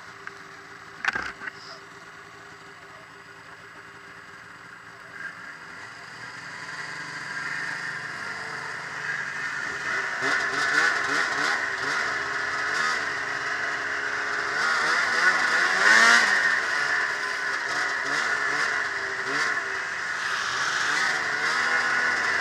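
Ski-Doo MX Z 700 snowmobile's two-stroke twin idling, with a sharp knock about a second in. It then pulls away and runs up through the revs, getting louder, and the engine note wavers up and down with the throttle. It is loudest about two-thirds of the way through.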